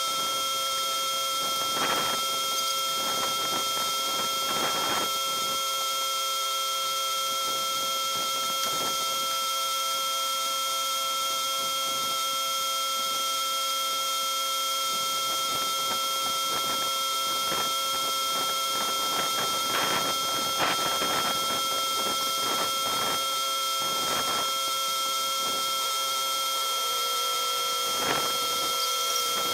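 A steady high-pitched whine made of several held tones, with scattered knocks and clanks, thickest in the second half and with one sharp knock near the end.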